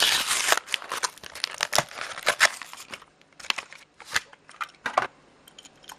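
A die-cast car's plastic blister pack and card being torn and cracked open by hand: a dense run of crinkling and tearing at first, then scattered crackles and clicks that die away after about five seconds.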